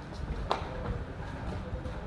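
Wooden crate knocking once, sharply, about half a second in as it is handled, over a low rumble of background noise.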